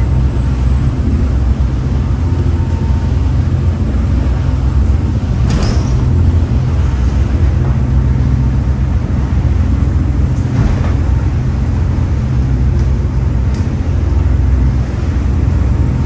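Twin diesel engines of a Viking 64 sportfishing boat droning steadily at cruising speed, heard from the enclosed flybridge over a constant rush of wind and water. Two brief splashes stand out, about five and a half and eleven seconds in, as the hull meets waves in heavy seas.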